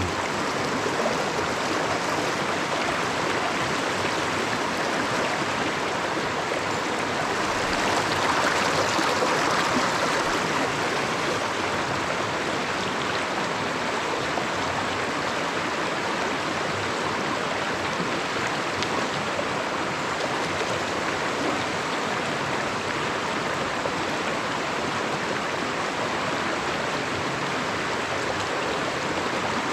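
Small mountain stream running steadily, a little louder for a few seconds about eight seconds in.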